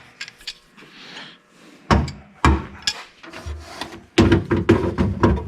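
Small wrench working the retaining nut of a car trunk lock: scattered sharp metal clicks, two louder knocks about two seconds in, then a quick run of clicking and clatter near the end.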